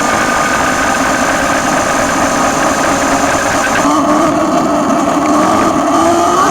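Sur-Ron electric dirt bike's motor whining while riding, several pitched tones sliding slowly down and then rising near the end as it picks up speed, over a steady rushing noise.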